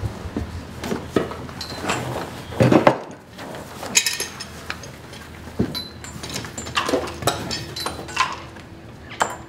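Irregular metallic clinks and knocks of clamps and tools against wood as a steamed oak plank is forced against a wooden boat's frames. The loudest knocks come about three and four seconds in.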